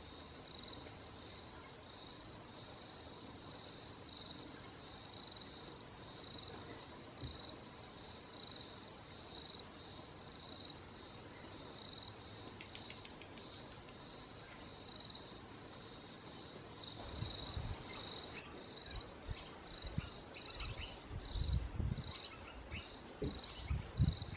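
An insect chirping steadily, one high short chirp about every two-thirds of a second, with faint small bird calls in quick falling runs of two or three notes. Low thumps come in over the last several seconds, the loudest near the end.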